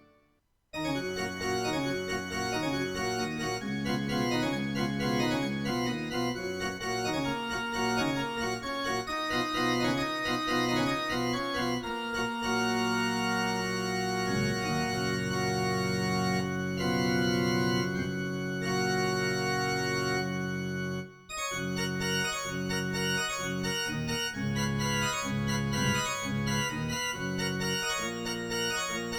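Yamaha PSR-E203 electronic keyboard playing music. It starts just under a second in, with long held chords in the middle and a short break about two-thirds of the way through before the playing resumes.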